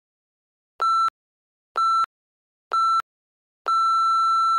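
Electronic interval-timer countdown: three short beeps about a second apart, then one long beep at the same pitch, marking the end of a work interval.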